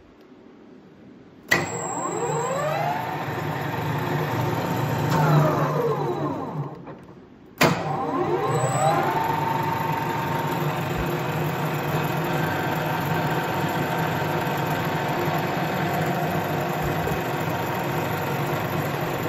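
Voest Alpine DA180 lathe, with its 3 kW three-phase motor and geared headstock, switched on with a clunk and whining up to speed. About five seconds later it winds down within a couple of seconds. After a short pause it starts again with another clunk, whines up to speed and runs steadily with gear whine.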